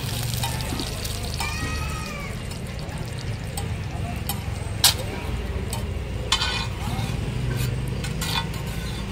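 A steel spatula scraping and tapping on a large flat iron griddle (tawa) as frying eggs are turned. It gives sharp metallic clinks, the loudest about five seconds in, over faint frying and a low steady hum.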